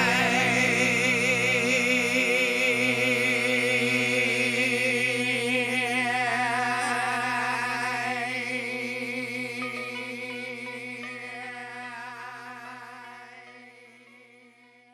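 Background music ending: a sung note held with vibrato over sustained chords, fading out slowly to nothing.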